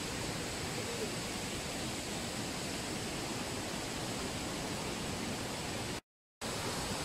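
Steady rushing of waterfalls, an even noise with no rhythm, broken by a brief silent gap about six seconds in.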